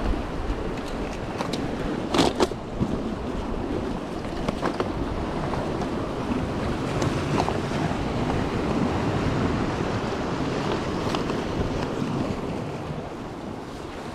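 Sea surf washing against the rocks and wind buffeting the microphone, a steady rushing, with a few short clicks and rustles of fishing gear and a rucksack being handled and packed away, the clearest about two seconds in.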